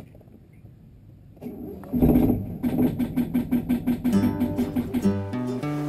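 A sharp click, then about two seconds in strummed plucked-string music starts with a steady beat and plays on.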